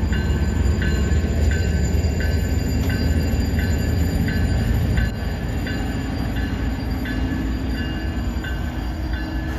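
Freight train rolling past: a heavy low rumble with the wheels clicking over the rail joints about twice a second, easing to a lower level about halfway through.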